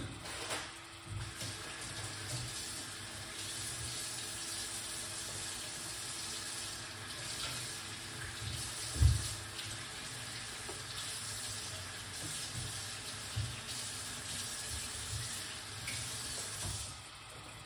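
Water running steadily from a kitchen tap, with a few soft knocks and one louder knock about halfway through; the water stops near the end.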